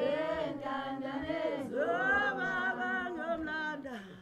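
Unaccompanied group singing: several voices holding and bending notes together in a chant-like choral phrase, which fades briefly near the end.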